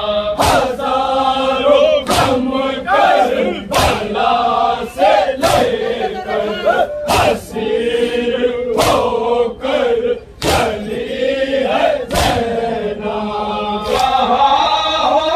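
Male voices chanting a Muharram nauha (lament) in chorus, with a sharp strike about every one to two seconds keeping time.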